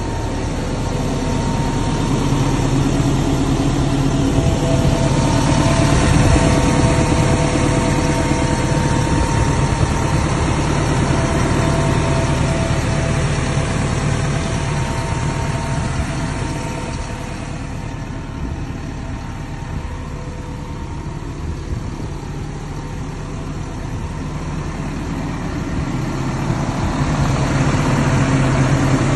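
Volvo EC210D excavator's Volvo D5E four-cylinder diesel engine idling steadily, with a low hum and a few steady higher tones over it. It grows quieter in the middle and louder again near the end.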